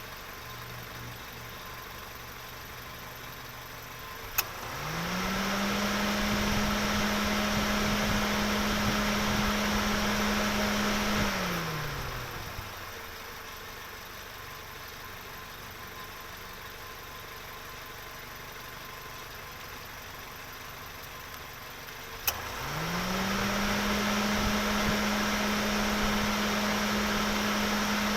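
Car engine running at a steady low idle. Twice there is a sharp click, then a whirring note rises in pitch and holds steady for several seconds. The first time it falls away again after about seven seconds; the second time it is still holding at the end.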